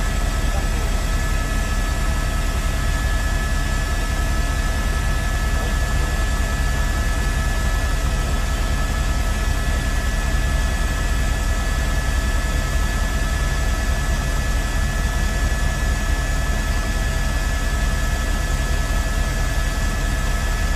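Steady helicopter cabin noise: a low engine and rotor rumble with a few steady whining tones over a constant hiss.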